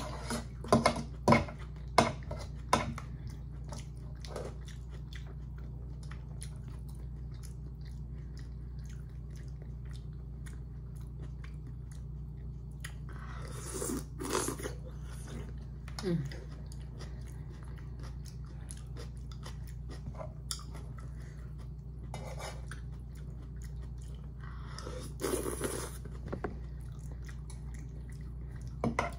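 Close-up eating sounds: a person chewing and slurping noodles, with chopsticks and a wooden spoon clicking against a metal pot in the first few seconds. Two louder slurps come about halfway through and again near the end, over a steady low hum.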